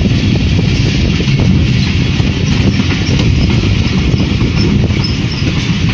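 Passenger train running along the track, heard from an open coach doorway: a steady loud rumble with fast, continuous clatter of the wheels over the rails.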